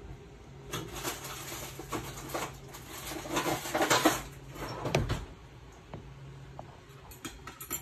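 Irregular rustling and light clattering of kitchen utensils being handled by the pot, loudest about four seconds in and quieter after five, over a low steady hum.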